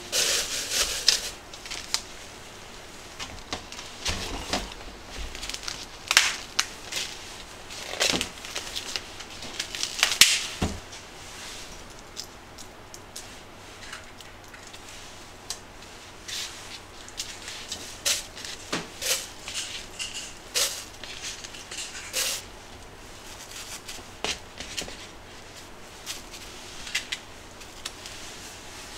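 A thin plastic bag crinkling as it is set into a plastic jug, then raw chicken pieces being picked off a foam tray and dropped into it. The sound is a run of irregular short crackles and taps, sharpest in the first ten seconds or so.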